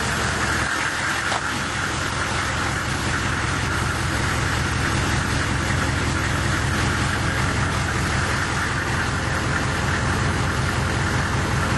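A fully warmed-up 6.5 L turbo diesel V8 in a 1995 Chevy Silverado idling steadily through a 4-inch straight-piped exhaust, heard close to the tailpipe.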